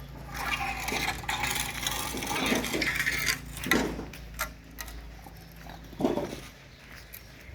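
Metal clattering and scraping for about three seconds, followed by a few separate knocks.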